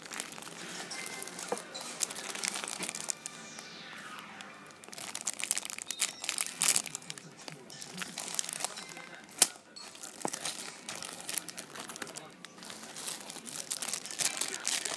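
Clear plastic bags crinkling and crackling as they are handled, in quick irregular bursts, with one sharper crackle about nine seconds in. Some music sits underneath.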